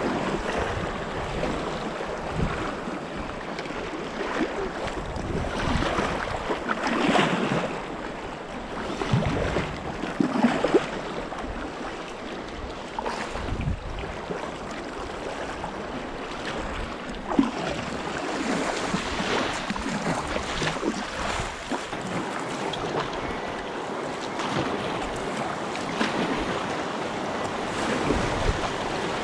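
River water rushing and splashing, with irregular surges and a few sharp splashes, while wind buffets the microphone.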